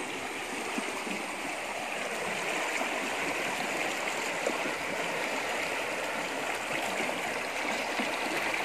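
Shallow stream rushing over and between boulders in small rapids: a steady rush of water, close up.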